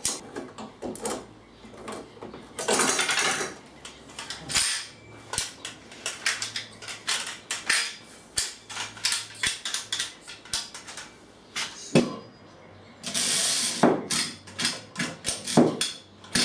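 Metal parts and hand tools clinking and knocking as pieces of a salvaged saw-blade guard are fitted together, with two longer rasping sounds, about three seconds in and again about thirteen seconds in.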